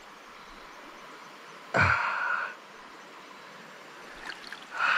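Shallow mountain creek running over rocks, a steady water hiss. Two brief louder noisy rushes break through it, one about two seconds in and one at the end.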